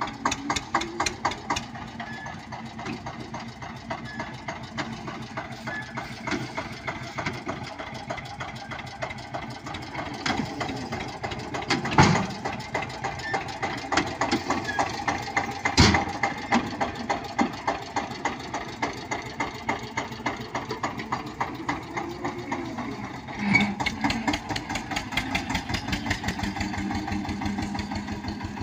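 Eicher 242 tractor's two-cylinder air-cooled diesel running at a low, steady beat as it pulls a loaded trolley past. Two loud thumps come about four seconds apart near the middle, and the engine swells louder for a moment later on.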